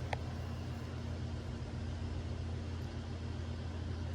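Steady low mechanical hum under a constant background hiss, with one faint short tick just after the start; no shot is fired.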